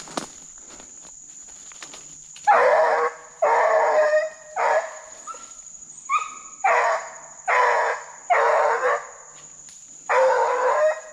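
Deer hound baying on a track: a string of about eight long drawn-out bawls, one after another with short gaps, starting a couple of seconds in.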